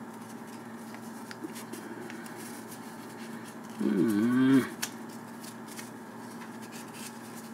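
Folded paper origami units being handled and slotted together, with faint scattered paper clicks over a steady low hum. About four seconds in, a man gives a short hummed 'mmm', dipping then rising in pitch.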